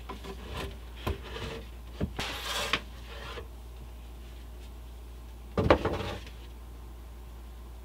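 Plywood boards being handled and fitted into place: a few short knocks and a scraping rub of wood on wood in the first few seconds, then a louder clatter of wood about six seconds in as a board is set down on the other.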